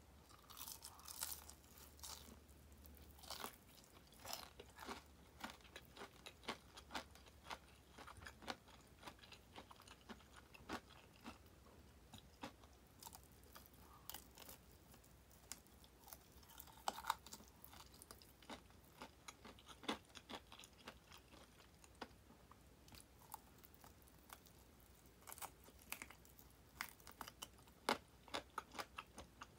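Biting and chewing crispy deep-fried chicken tulip drumettes: many short, sharp crunches of the fried coating in irregular bursts, with quieter chewing between them.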